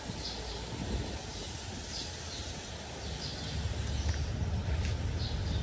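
Outdoor background with a low rumble that grows louder about three and a half seconds in. Faint, short, high bird chirps, often in pairs, come every second or so.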